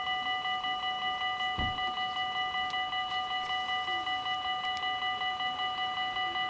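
Railway level crossing warning bell ringing rapidly and evenly, about five strokes a second: the crossing is active for an approaching train.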